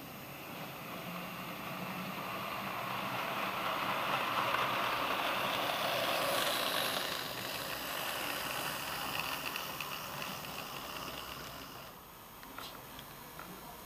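Electric model train running along its track: wheels and motor make a steady rumbling whir that grows louder as the train passes close midway, then fades. A couple of light clicks near the end.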